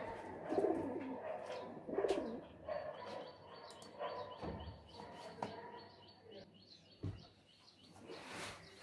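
Pigeon cooing in low repeated phrases, loudest in the first two seconds, with small birds chirping high and a few sharp clicks.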